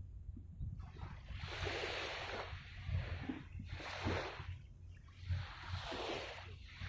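Small waves washing in and draining back at the water's edge, one swell of hissing wash after another, over a steady low rumble.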